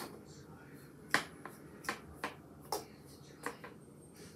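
Sharp small plastic clicks and taps, about eight in an irregular run, from a plastic comb and doll being handled while the doll's hair is combed and styled.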